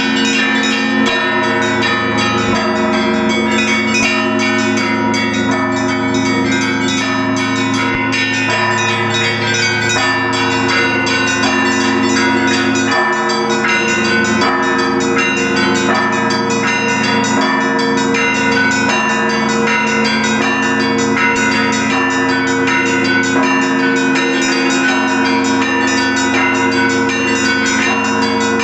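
Russian Orthodox church bells ringing a full zvon, many bells at once. Small bells are struck in quick, rhythmic patterns over the steady ringing hum of the larger bells.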